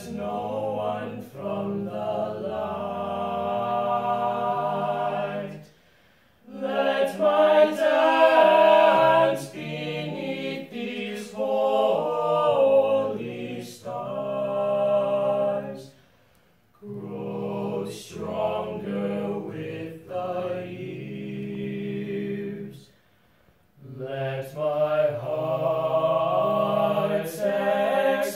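Male vocal quartet singing a cappella, four voices in harmony. The song moves in long phrases with brief silent breaks about six, sixteen and twenty-three seconds in.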